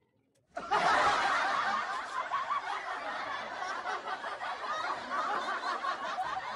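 Continuous laughter, starting abruptly about half a second in after a moment of near silence.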